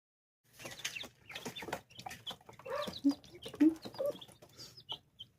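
Baby chicks peeping in many short high chirps, with scratching and rustling in their bedding; it starts about half a second in.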